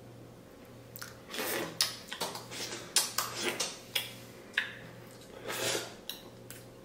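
A man biting into and chewing a double cheeseburger, making a string of irregular short smacks and clicks.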